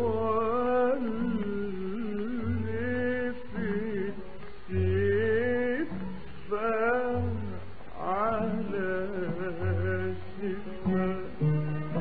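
Old recording of a male Arabic singer drawing out a long, ornamented melismatic phrase, with Arab ensemble accompaniment of plucked strings and recurring low held notes.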